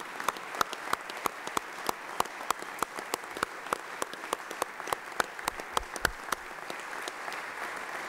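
Applause from a group of people clapping, with a few close, sharp claps standing out at about three a second over the patter of many hands, thinning out near the end.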